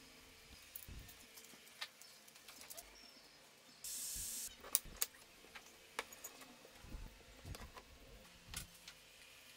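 Light knocks and clicks of plywood parts being handled and set down on a wooden workbench, with a short hiss about four seconds in; no power tool is running.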